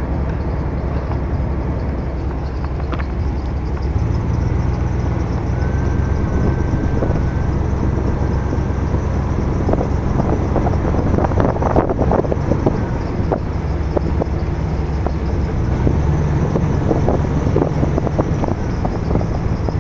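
Car driving slowly, with a steady low engine and road hum; the engine note steps up about four seconds in. Scattered light clicks and crackles come through in the second half.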